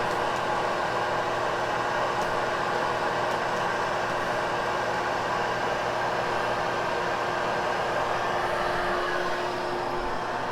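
Hoover Hush Tone vacuum cleaner motor running steadily with a faint constant hum, level easing slightly near the end.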